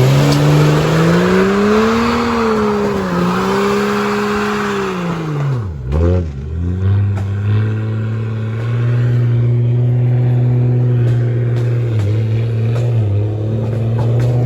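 Car engine revving up and down, then dropping sharply and blipping once about six seconds in, before settling to a steady run for the rest.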